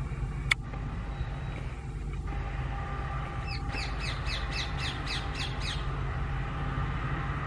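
Steady low rumble of diesel locomotive engines, with a bird giving a quick run of about nine falling calls in the middle and a single sharp click about half a second in.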